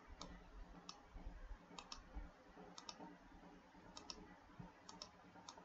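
Faint computer clicks over low room tone, about one a second, several of them in close pairs like a mouse button pressed and released.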